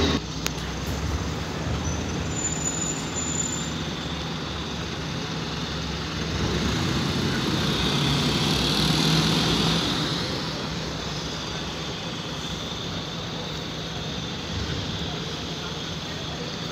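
Diesel engine of a single-decker bus driving past close by, growing louder about halfway through and fading as it pulls away, over steady road traffic noise.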